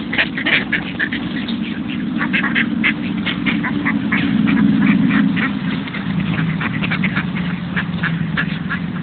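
A flock of mallards quacking and chattering as they crowd round to be fed, many short overlapping quacks several a second, over a steady low rumble.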